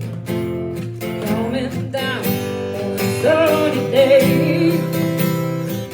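A song played on strummed acoustic guitar, with a voice singing the melody from about three seconds in.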